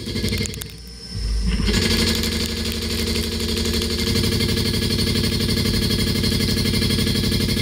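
Nakamura WT-300 turn-mill machine spinning a crankshaft between its chucks: a steady mechanical running sound with several held tones and a hiss, growing louder and fuller about a second and a half in.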